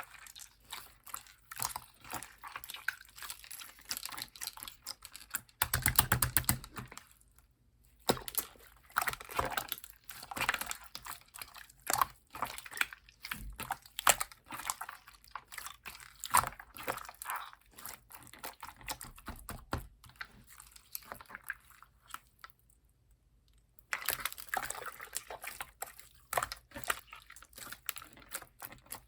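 Slime being squeezed, stretched and poked by hand, giving a run of small sticky clicks, pops and wet squishing crackles. There is a louder, denser burst about six seconds in and a brief pause about two-thirds of the way through.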